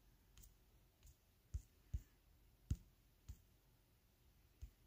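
Faint handling noise as a large book is moved and adjusted: about seven soft, irregular knocks and clicks, the sharpest a little past the middle.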